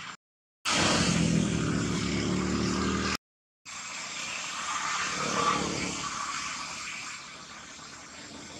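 A motor vehicle's engine running close by, a dense low hum, then after a short break a vehicle passing that grows louder to about five and a half seconds in and fades away. The sound cuts out to silence twice, briefly.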